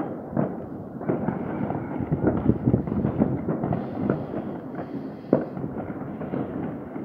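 Many fireworks and firecrackers going off at once: a dense, irregular crackle of overlapping bangs and pops, with one sharper bang about five seconds in.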